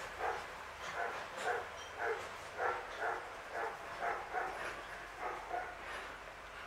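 An animal off-camera giving a rapid series of short, pitched calls, about two a second, that stop near the end.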